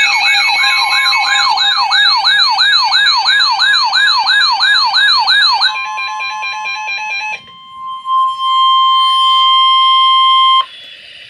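Emergency Alert System alert tones: an electronic tone sweeping rapidly up and down like a siren for about six seconds, then a shorter stepping warble, then a steady single tone for about two seconds that cuts off abruptly, leaving a faint hiss.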